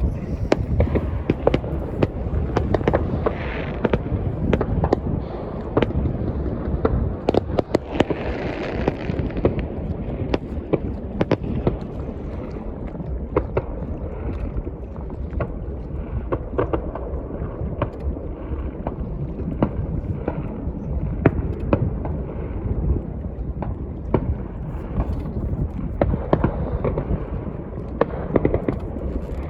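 Fireworks going off one after another, with many sharp bangs and crackles over a steady low rumble. A denser crackling stretch comes about eight seconds in.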